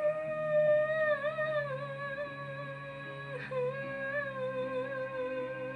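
A young woman humming two long held notes over a backing track of sustained chords. The first note breaks off about three and a half seconds in and a slightly lower one follows.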